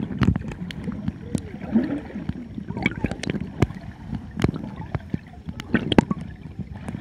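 Underwater sound of swimmers kicking and paddling: muffled churning water and gurgling bubbles, broken by many irregular sharp clicks and pops.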